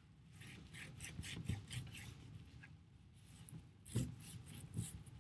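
Faint rubbing of a cloth towel over a textured, unglazed bisque ceramic figure, wiping off wet paint in quick repeated strokes. A soft thump about four seconds in.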